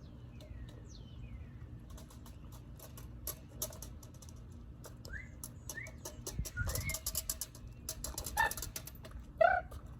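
Birds chirping in short calls, among quick runs of sharp clicks and clatter that grow denser in the second half; a louder pitched call comes near the end.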